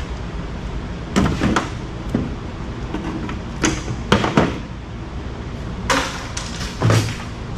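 Sharp clatters and knocks of metal and plastic parts being handled and dropped while a microwave oven is stripped for scrap. There are about seven in all, in a pair, then a run of three, then two single knocks, over a steady background noise.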